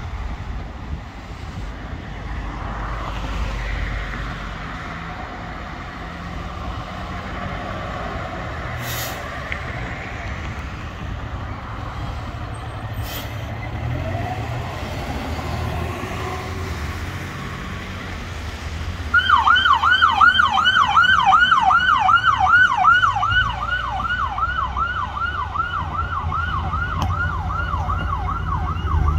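A fire pumper's engine running low and steady as it pulls out and drives past, with two short hisses in the middle. About two-thirds of the way in, an emergency vehicle's electronic siren starts a fast yelp, about three sweeps a second, and becomes the loudest sound.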